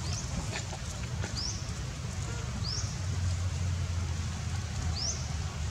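Short, high chirping calls from a small animal, four in all, each rising quickly in pitch and spaced a second or more apart, over a steady low hum.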